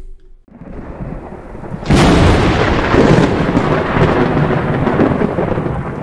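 Thunder sound effect: a low rumble builds, then comes a sharp crack about two seconds in, followed by a long rumble that slowly fades.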